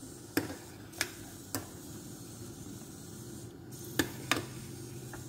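Milk boiling in a steel pan with flour dumplings cooking in it, a steady bubbling hiss broken by a handful of sharp clicks.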